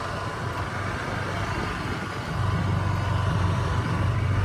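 Motorbike engine running as the bike is ridden along a dirt lane. Its low drone grows louder about halfway through.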